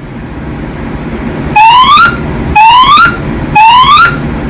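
Fire alarm voice-evacuation speakers sound their alert tone: three rising whoops, each sweeping up in pitch over about half a second and spaced a second apart, starting about a second and a half in. This is the temporal-three evacuation pattern that signals everyone to leave the building. A steady low hum runs underneath.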